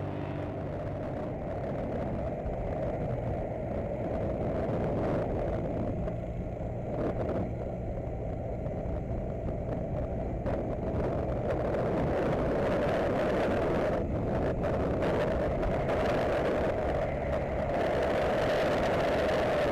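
Motorcycle on the move: engine running under steady wind and road rush, getting louder about twelve seconds in and again near the end.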